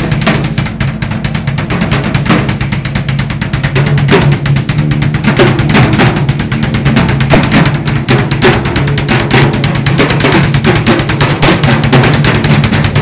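Drum kit played fast and loud during a sound check, with a rapid run of snare and bass drum strokes and cymbals. A steady low hum runs underneath.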